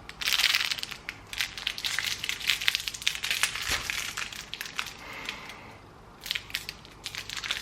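Wrapper of an individually wrapped hard candy crinkling as it is handled and opened by hand: a dense run of irregular crackles that eases off about five and a half seconds in, then picks up again briefly.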